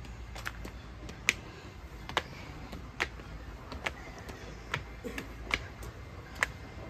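Footsteps climbing stone steps: sharp clicks of shoes on stone, about one step a second, over a faint low rumble.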